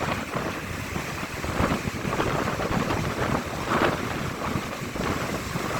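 Strong gusty wind buffeting the microphone over the rush of ocean surf.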